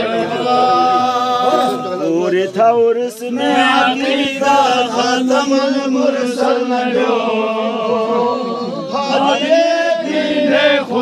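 A group of men's voices chanting together, long notes held on several pitches, with a few short sharp knocks in between.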